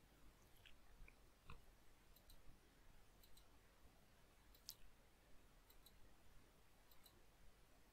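Near silence with about eight faint, irregular clicks from computer input as the menu of a console application is navigated.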